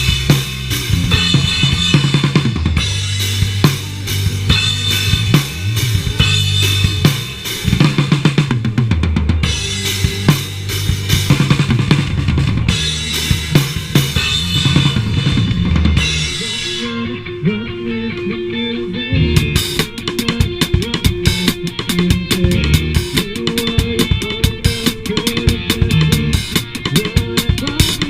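Live band playing loud rock music, led by drum kit with kick and snare over bass and guitar. About two-thirds of the way through, the drums drop out for a few seconds, leaving held bass and guitar notes, then the full kit comes back in with fast hits. It is picked up by a chest-mounted action camera's built-in microphone.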